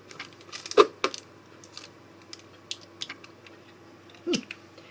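Scattered light taps, clicks and scrapes of a small plastic Versamark ink pad being dabbed and rubbed on a paper notebook cover and its plastic case handled, with the sharpest clicks about a second in.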